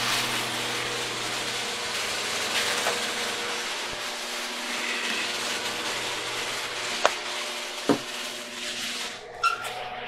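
Electric garage door opener running as the door closes: a steady motor hum and rattle for about nine seconds, with two sharp knocks near the end before it stops.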